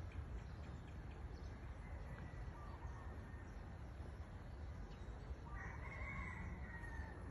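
A rooster crowing, with one long call of about a second and a half near the end, over a steady low rumble.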